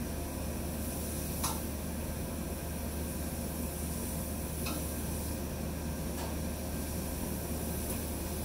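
Laser cutter running while it cuts a honeycomb pattern into a wooden board: a steady hum and hiss of the machine, with three faint ticks.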